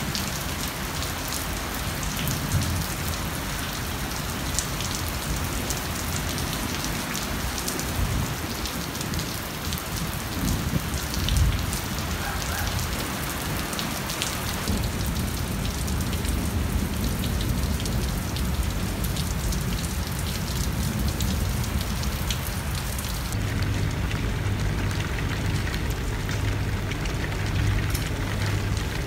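Steady rain falling, with scattered ticks of drops striking hard surfaces. About three-quarters of the way through, the rain turns duller, heard from indoors behind a screened window, and a steady low hum comes in under it.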